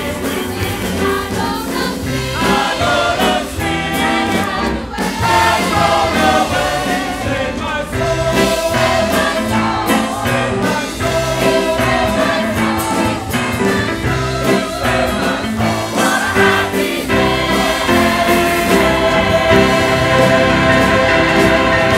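Church choir singing with instrumental accompaniment under it, growing a little louder toward the end.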